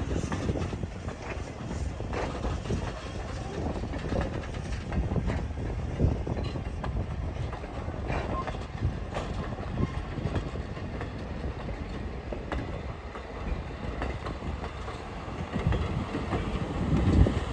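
Train hauled by steam locomotive No. 89 rolling along the track: a steady low rumble with wheels clicking over the rail joints.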